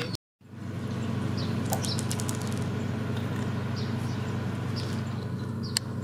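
Crunchy chewing of raw bitter melon: a quick run of crisp crunches about two seconds in, with softer chewing after. A steady low hum lies underneath, with a few faint high chirps, and the sound drops out briefly right at the start.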